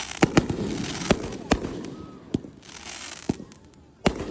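Aerial fireworks bursting: a quick series of sharp booms, about seven in four seconds, with crackling between them.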